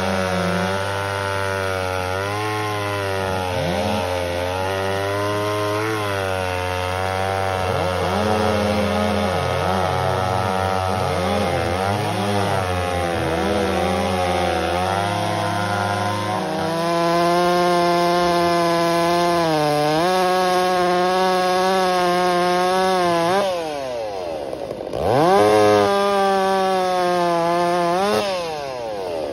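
Two-stroke chainsaws running at high revs while cutting through a log, the pitch dipping and recovering again and again as the chain bites into the wood. A large vintage saw is heard first. About halfway through the engine note changes abruptly to a different saw, which falls away to a low note and revs back up twice near the end.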